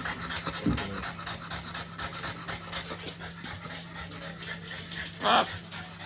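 French bulldog panting quickly and steadily, out of breath from jumping up at the parrot. A brief louder call cuts in about five seconds in.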